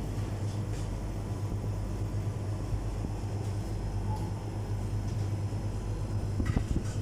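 Steady low rumble of a moving vehicle, with a few sharp knocks near the end.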